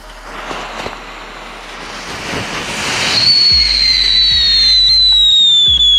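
Novelty tank-shaped firework spraying sparks with a hiss that swells over the first few seconds, then a loud whistle starting about three seconds in that glides slowly down in pitch.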